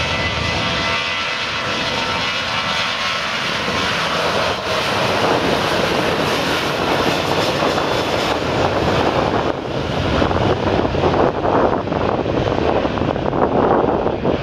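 The twin CFM56-7B turbofan engines of a Boeing 737-800 run steadily as it moves down the runway. The early part is a whine with thin steady tones in it. About ten seconds in it turns rougher and a little louder.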